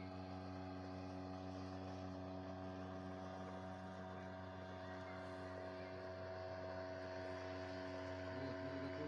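Small motorboat's engine running at a steady pitch, a constant drone as the boat travels along the river.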